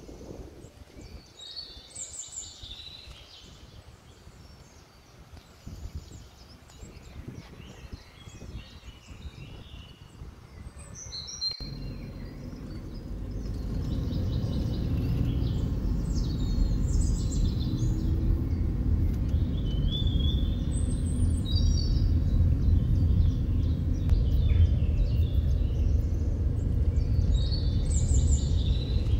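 Songbirds chirping and singing in short, scattered phrases. About halfway in, a steady low rumble of a car being driven, heard from inside the cabin, starts and becomes the loudest sound, with the birdsong still heard over it.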